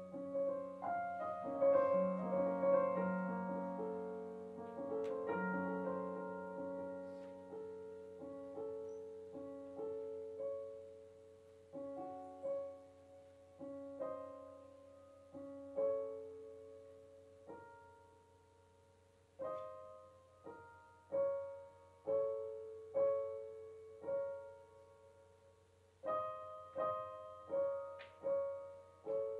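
Solo piano playing a slow piece of single notes over low held notes. It thins out and grows quiet about two-thirds through, then comes back with stronger, evenly spaced notes, roughly one a second.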